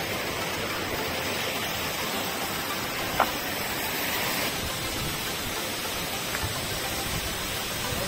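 Waterfall pouring down a rock face: a steady rush of falling water, with one short click about three seconds in.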